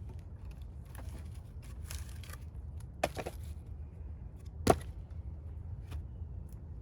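Axe striking firewood rounds while splitting: a quick double knock about three seconds in, then one sharp crack, the loudest, just before five seconds in, over a steady low rumble.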